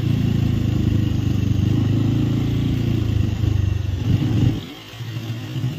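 Bajaj Avenger 220 Street's single-cylinder engine running at low road speed, heard from the saddle. About four seconds in the engine note rises briefly, then drops away and quietens for a moment before picking up again.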